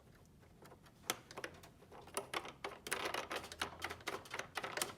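Irregular light clicks and rattles of plastic parts as a large plastic jam nut is spun by hand onto the threads of a plasma cutter's torch receptacle, starting about a second in.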